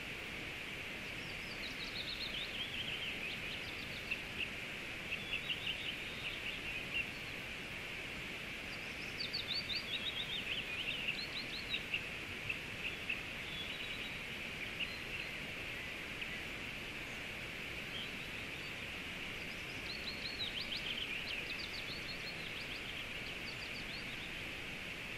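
Steady hiss of a flowing river, with a small songbird singing over it in several bursts of quick, falling chirps.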